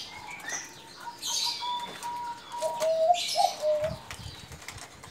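Male zebra dove (perkutut gong) cooing in a deep, repeated 'kuk-kuk-kuk' like a bekur dove, the sign of a male in strong breeding condition: a held note, then a run of wavering notes. Bird chirps sound above it, and wings flap briefly near the end.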